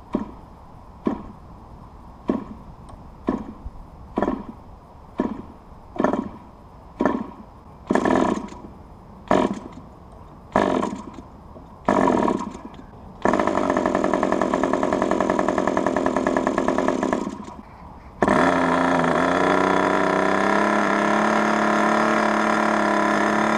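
Raduga R10R 10 cc two-stroke glow-plug model aircraft engine, fitted with a muffler, hand-started by flicking the propeller: about a dozen short pops roughly once a second, then it catches and runs for about four seconds, stops, and restarts about 18 seconds in, running steadily on a rich mixture. It is a brand-new engine still being run in.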